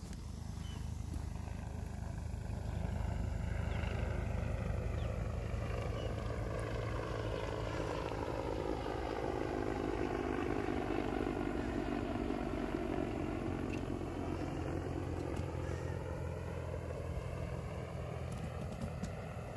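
Helicopter flying past overhead: a steady rotor beat and engine noise that swells over the first few seconds, with a sweeping whoosh that falls and then rises in pitch as it passes over.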